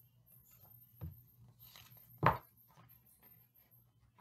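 Picture book being handled as a page is turned: faint paper rustling, with a soft knock about a second in and a louder knock a little after two seconds.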